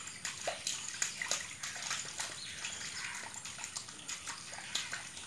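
Bare feet splashing and sloshing through a shallow muddy puddle: a quick, irregular string of small splashes.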